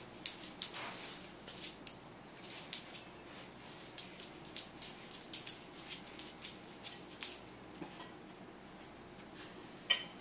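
Dogs moving about on a tile floor: a run of light, irregular clicks for about the first seven seconds, then one sharper, ringing click near the end.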